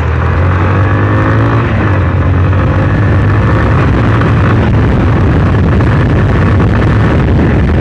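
Motorcycle engine running under way, its pitch rising over the first couple of seconds and then holding steady, with a constant rush of road noise.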